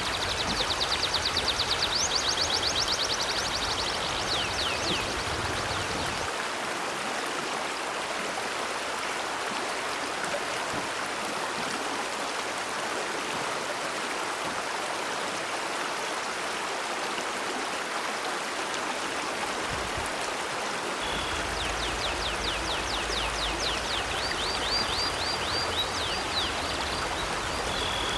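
River water flowing steadily. A small bird sings fast trills of short, high chirps, first during the opening few seconds and again from about two-thirds of the way in until the end.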